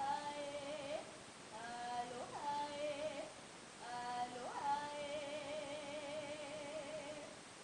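A woman's voice chanting unaccompanied in long held notes, in the manner of a Hawaiian oli. Three phrases, each opening with a quick upward slide; the last, from about four seconds in, ends on a long wavering note that stops shortly before the end.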